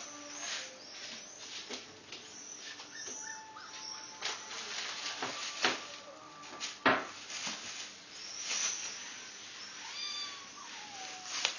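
Plastic shopping bag crinkling and rustling in quick irregular crackles as a kitten jumps on, walks over and rolls on it, with two loudest crackles a little past the middle. Near the end a cat gives a meow that falls in pitch.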